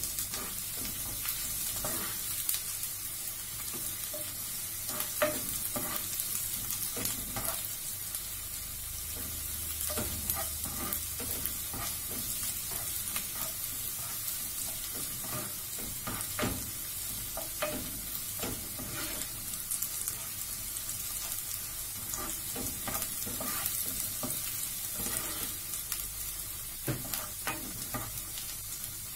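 Chopped onion and garlic sizzling in hot oil in a frying pan, with a steady hiss, while a spatula stirs them, scraping and tapping on the pan many times.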